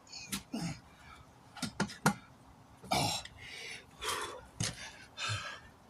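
A man's short grunts and breaths of effort, a series of separate bursts, while he pries a cold tire's bead down over the rim by hand.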